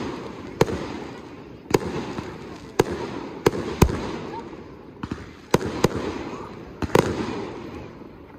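Aerial fireworks shells bursting overhead: about ten sharp bangs at irregular intervals, a second or so apart, each trailing off in a rolling echo.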